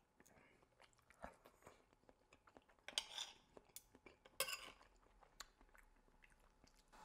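Faint clinks and scrapes of a knife and fork on a plate as raw salmon is cut into bite-sized pieces, with louder scrapes about three and four and a half seconds in.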